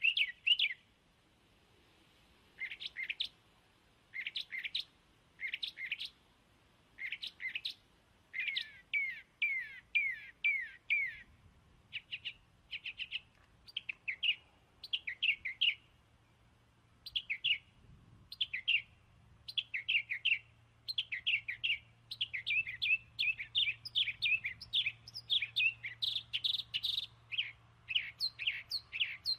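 A bird chirping in quick bursts of short, falling notes, the bursts coming closer together and busier toward the end.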